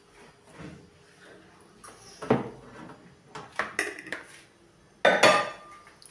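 A spoon clinking and knocking against an air fryer basket and a mixing bowl, in several separate clatters, the loudest about five seconds in.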